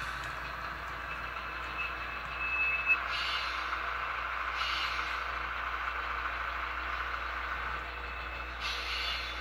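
SoundTraxx Tsunami 2 sound decoder playing diesel switcher sounds through the small speaker of an HO scale GE 70-ton locomotive: a steady engine running sound, broken by short hisses about three seconds in, near five seconds and near nine seconds.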